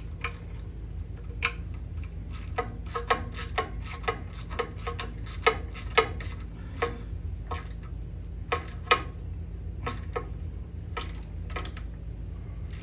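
Sharp metallic clicks and taps of a hand wrench on small steel bolts being tightened, irregular at about one to three a second, each with a short metal ring, over a steady low hum.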